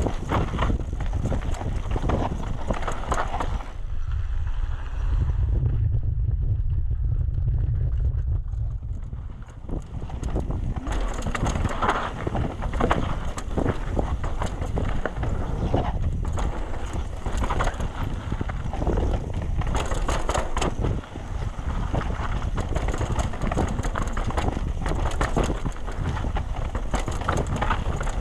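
Trek Session downhill mountain bike ridden fast over a rough, rooty trail: tyres and frame clattering with a constant stream of knocks and rattles, under wind rushing on the microphone. From about four to nine seconds in the rattle fades and a low wind rumble takes over, then the clattering comes back.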